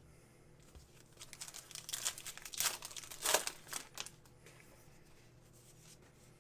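Crinkling and tearing of trading-card pack wrappers being handled and opened: a run of quick crackles from about a second in to about four seconds in, then quiet handling.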